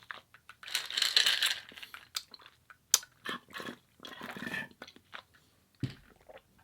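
Close-miked mouth sounds of a person chewing and crunching food, in irregular bursts with sharp clicks.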